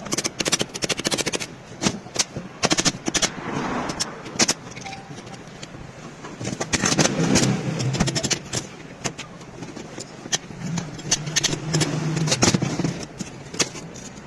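Metal clinks, taps and scrapes of tools and gearbox parts being handled, many short irregular knocks.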